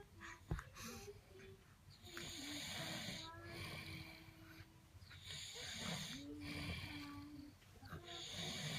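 A man snoring in his sleep: slow, rasping snores, each drawn out over two to three seconds.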